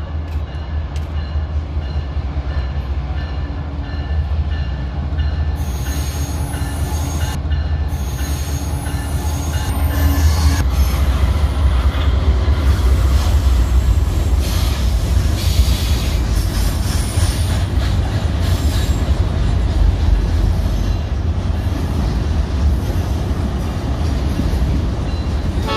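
Diesel-electric freight trains running past: a steady low locomotive engine rumble with the clatter of wheels on the rails, growing louder about ten seconds in as a locomotive hauling container cars rounds a curve. There is some wheel squeal.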